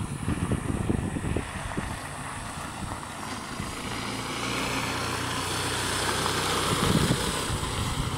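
A motor running, with gusty wind rumble on the microphone. The motor's note steadies about three seconds in and grows slowly louder toward the end.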